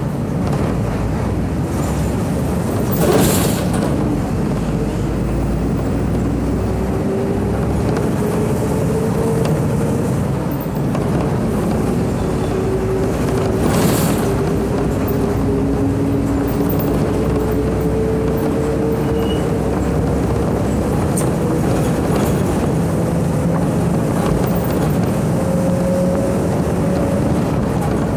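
MWM diesel engine of a Volvo B270F city bus running under way, heard from inside the cabin. Its note climbs slowly, drops, then climbs again. Two brief bursts of noise come about three seconds in and again near fourteen seconds.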